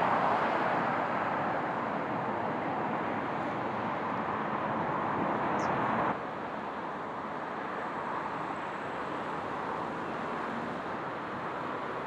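Steady rushing of shallow water flowing over a rocky riverbed, dropping slightly in level about six seconds in.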